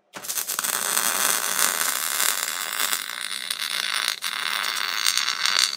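Arc welding a steel truss onto a Dana 60 axle housing: the arc strikes right at the start and runs as a steady crackling sizzle while a bead is laid, with a brief break about four seconds in.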